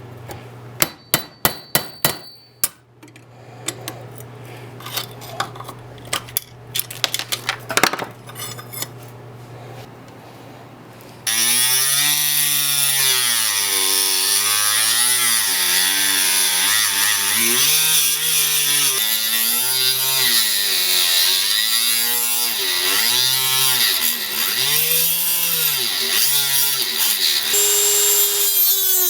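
Hammer blows ringing on steel near the start. About 11 seconds in, a power grinder starts loud against steel, its motor pitch sagging and recovering again and again as it is pressed into the work, over a strong hiss.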